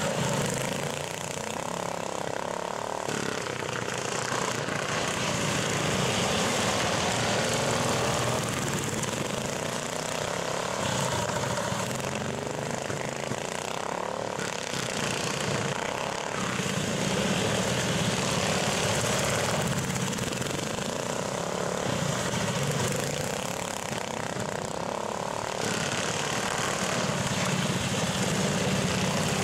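Racing garden tractors' small engines running hard, the sound swelling and easing about every ten seconds as the machines lap and pass.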